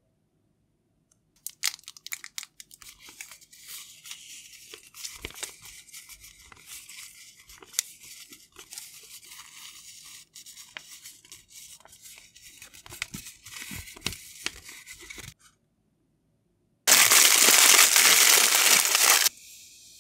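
Close crinkling and rustling of clear plastic tape and paper stickers being handled, with many small ticks. About seventeen seconds in comes two seconds or so of loud tearing, as tape is peeled off its roll.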